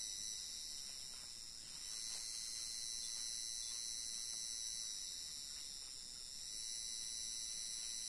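Steady, high-pitched insect chorus, easing slightly twice before swelling back.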